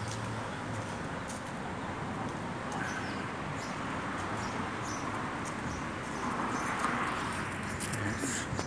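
Steady city street traffic noise, swelling briefly as a vehicle passes about seven seconds in.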